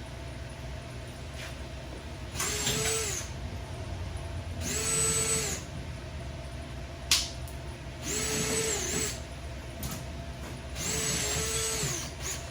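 Power drill drilling out the heads of the frame rivets in four short bursts, each spinning up to a steady whine and stopping. A single sharp click comes about halfway through.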